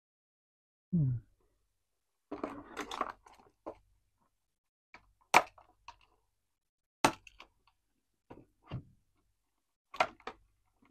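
Fashion-doll packaging being opened by hand: a crinkle of cardboard and plastic, then a handful of sharp plastic snaps and clicks spaced a second or two apart. A short low hum comes about a second in.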